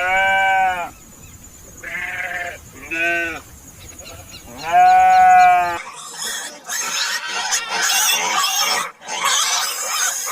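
Goat bleating four times, the last bleat the longest and loudest. About six seconds in the bleating gives way to a harsh, hissing, high-pitched animal noise.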